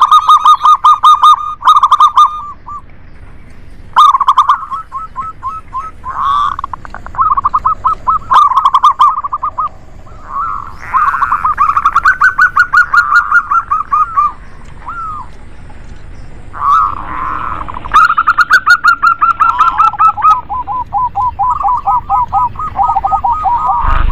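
Zebra doves (perkutut) cooing: repeated runs of rapid staccato notes, each run lasting one to three seconds. Toward the end two birds call over each other at slightly different pitches.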